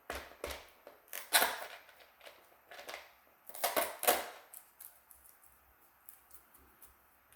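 Small plastic packaging being handled: crinkling of a plastic bag and light clicks of a small plastic container, with louder rustles about a second and a half in and again around four seconds in.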